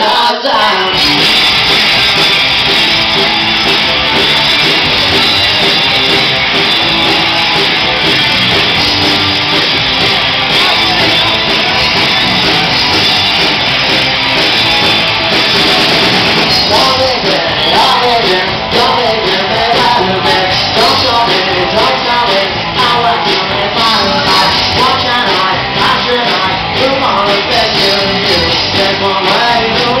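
Live rock band playing loud, with electric guitar, drums and vocals; from about halfway the singing stands out more clearly.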